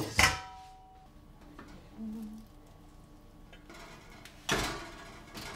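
A large stainless steel mixing bowl set down with a clank, ringing for about a second as it fades. Near the end, a short scrape of a spatula through fried rice in a frying pan.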